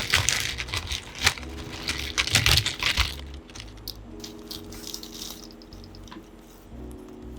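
Plastic clicking and clattering of Glorious Panda mechanical keyboard switches, busy for about the first three seconds and then sparser. Soft background music with held chords plays underneath.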